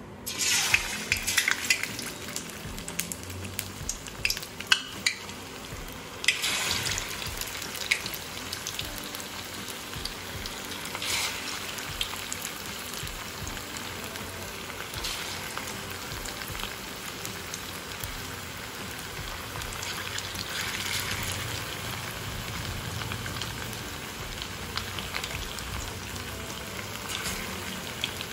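Marinated chicken kebab pieces deep-frying in hot oil in a kadai: a steady sizzle, with sharp pops and crackles through the first several seconds as pieces are dropped into the oil.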